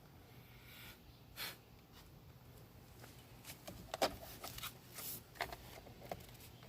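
Faint handling noise: a scattering of small clicks and brief rustles, most of them bunched together about halfway through, as parts of the steering column and its wiring plugs are worked by hand.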